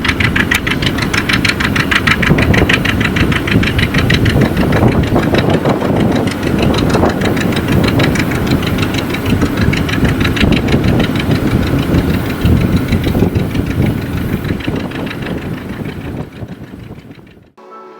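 Steel-wheeled farm tractor's engine running with a fast, even pulse; the sound cuts off abruptly near the end.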